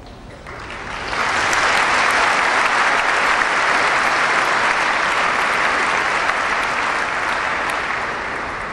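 Audience applauding. The clapping swells within the first second, holds steady, then slowly dies away near the end.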